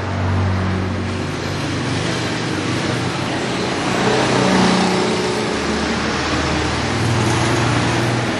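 Road traffic going past: a steady wash of engine and tyre noise, with the hums of individual engines swelling and fading as vehicles pass, loudest about halfway through.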